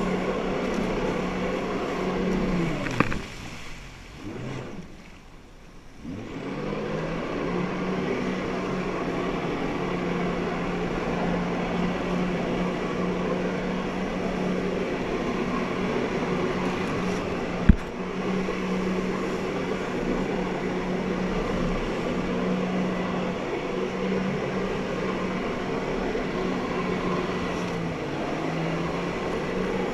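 Personal watercraft engine running hard to drive a flyboard's water jets, a steady drone mixed with rushing water. About three seconds in the engine pitch drops and the sound falls away, then it rises back to the same steady drone by about six seconds. There is a sharp click around eighteen seconds in.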